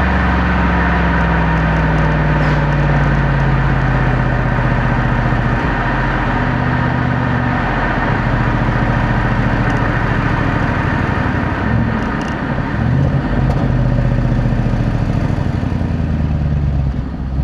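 Jaguar XFR's supercharged 5.0-litre V8 running through its stock exhaust, at a steady low engine speed. The pitch eases down slightly in the first few seconds, and the note wavers briefly about twelve seconds in.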